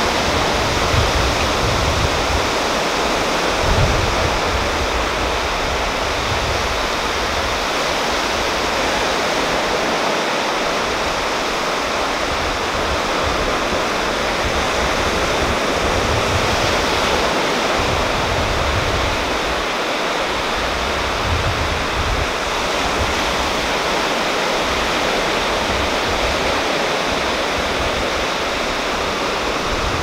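Small sea waves washing steadily onto a rocky shore, a constant surf hiss, with irregular low rumbles of wind on the microphone.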